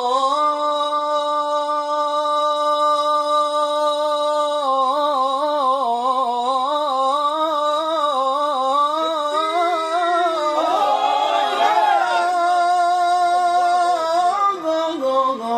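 A male voice singing Arabic religious chant (inshad): a long held note, then from about four and a half seconds in a long melisma with fast wavering ornaments.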